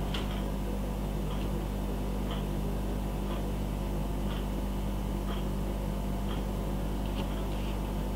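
Steady low electrical hum of room tone, with a faint tick about once a second.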